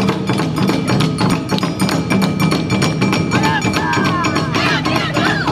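Awa Odori festival band playing: strapped barrel drums (okedo-daiko) and other percussion beating a dense, fast rhythm, with a clicking metallic beat on top. Wavering high pitched notes rise and fall over the band from a little past three seconds in.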